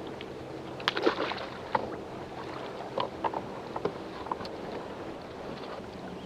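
Scattered sharp clicks and knocks on a fishing kayak, most of them in the first four seconds, over a steady low hum.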